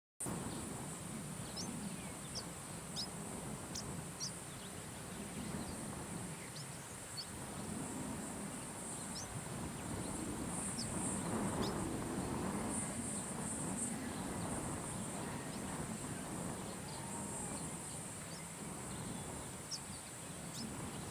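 Pin-tailed whydah calling: short, sharp, high chirps, scattered irregularly and bunched most thickly in the first few seconds and near the end. Underneath runs a steady high insect buzz and a low rumble of background noise.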